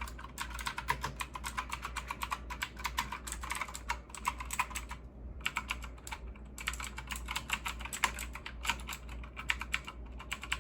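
Typing on an onn. gaming mechanical keyboard with blue switches: a fast, uneven stream of sharp key clicks, with two short pauses about five and six seconds in.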